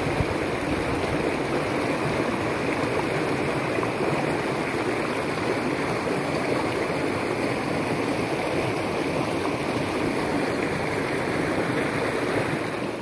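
Small rocky stream rushing over stones in shallow white-water rapids: a steady rush of water.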